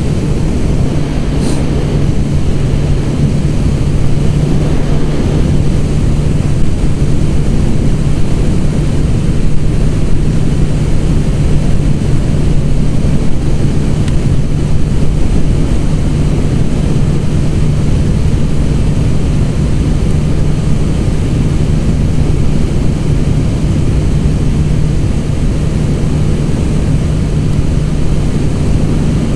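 Honda CB1000 motorcycle's inline-four engine running at a steady cruise, one even drone with no change in revs, under a constant rush of wind on the microphone.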